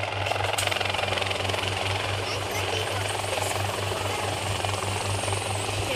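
Small helicopter hovering low, its rotor and engine running steadily with a regular low beat from the blades.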